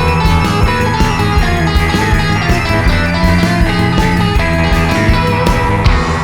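Background music: a guitar-led rock instrumental with a steady drum beat, ending on a loud final hit near the end.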